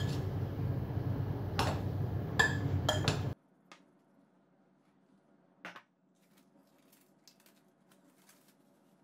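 Metal fork clinking and scraping against a glass bowl while stirring a filling of crumbled white cheese, chopped sucuk and olives, with several sharp clinks. It cuts off abruptly a little over three seconds in, leaving only faint scattered ticks.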